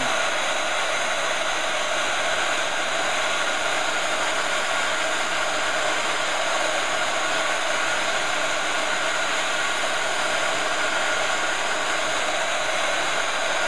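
Embossing heat gun running steadily, blowing hot air onto a candle to melt a napkin motif into the wax: an even, unbroken hiss.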